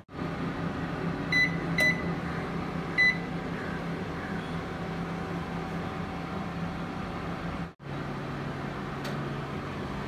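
Steady low hum of a preheated IFB convection microwave oven running, with three brief high-pitched blips in the first three seconds. The sound drops out for an instant near eight seconds, and the hum continues slightly lower afterwards.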